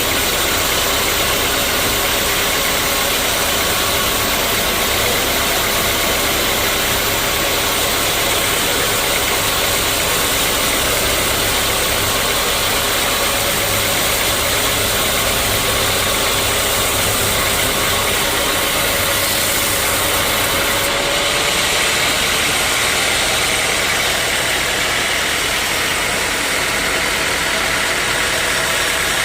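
Sawmill saw and its drive engine running steadily, a loud continuous drone with a wide hiss over it; the hiss changes character about 21 seconds in.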